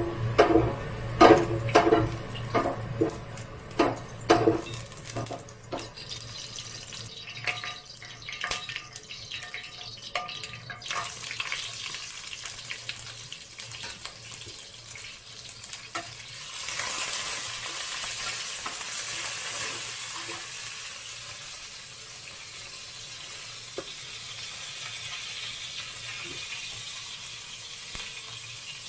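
A string of sharp knocks in the first few seconds, then chopped meat frying in hot oil in a wok: the sizzle starts about 11 seconds in, grows louder about 17 seconds in, and goes on while a metal spatula stirs it.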